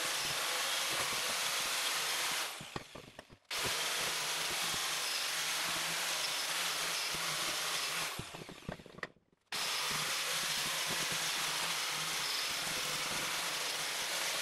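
A grinder's wire wheel running against a rusty suspension steering knuckle, stripping off the rust with a steady, loud whir. It winds down twice, about three and eight seconds in, and each time starts running again abruptly.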